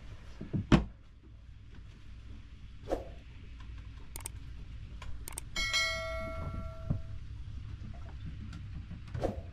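Sailboat's overhead hatch pulled shut with a sharp thump just under a second in, then rain falling steadily on the closed hatch, with a few light clicks. A short bell-like ding rings out about six seconds in.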